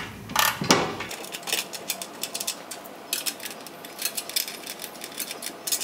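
Rapid, irregular small metallic clicks and ticks as an 8mm button head bolt and its zinc washer are threaded in by hand through a steel guard.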